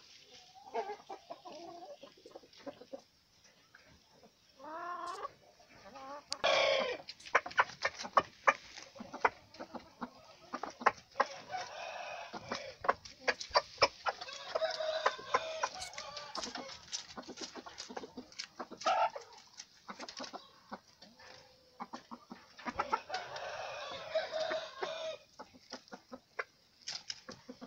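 Gamecocks and hens clucking and calling, with one loud call about six and a half seconds in. Many sharp clicks are scattered through it.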